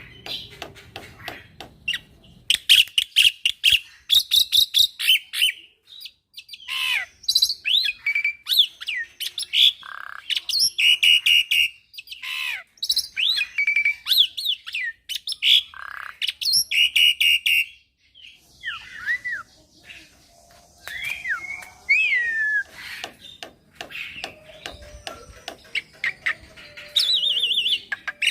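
Young black-winged myna (jalak putih) singing a long, varied song: fast runs of clicking, chattering notes mixed with harsh squawks and whistled notes that slide up and down, in bursts with short pauses between.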